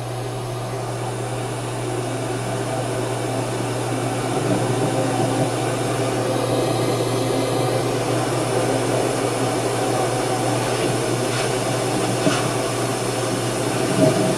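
Steady low hum with a hiss over it, slowly growing a little louder over the first few seconds.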